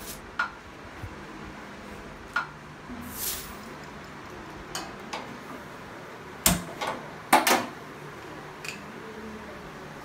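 A few sharp clicks and knocks of kitchen utensils handled on a steel gas stove. The loudest is a clunk about six and a half seconds in, followed a second later by a quick cluster of clicks.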